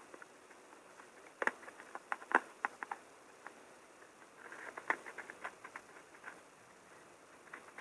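Small sharp clicks and taps of a phone's parts and hand tools being handled during disassembly, coming in two quick clusters of clicks with a few single ticks between.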